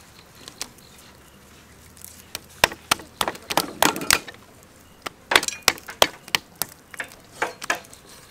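Meat cleavers knocking on round wooden chopping blocks as raw chicken breasts are sliced: quick, irregular knocks that begin about two seconds in, come in a dense cluster, pause briefly, then come in a second cluster.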